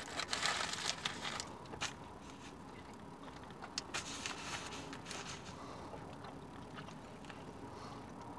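Quiet eating sounds: a person chewing a bite of a hot breakfast sandwich, with scattered small clicks and soft rustling of its foil wrapper.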